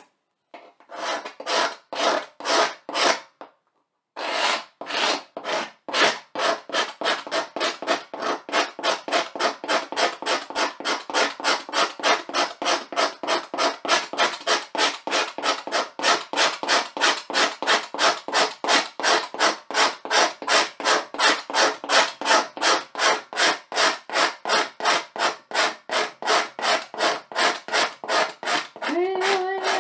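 Rapid hand strokes of a pointed tool scratching lines into a blackboard. A few slower strokes and a short pause come first, then an even run of about three scrapes a second. A voice starts humming just before the end.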